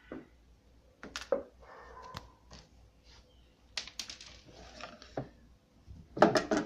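Irregular plastic clicks and knocks from handling the refrigerator's control panel and its locking clips, with a brief scrape early on and a louder cluster of knocks near the end.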